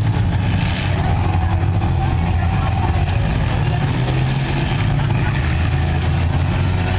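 Engines of several demolition derby cars running and revving together in a steady, loud drone.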